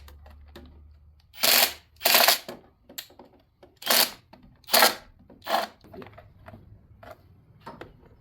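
Hand ratchet clicking in short bursts, about five strokes with pauses between them, as it works a bolt loose.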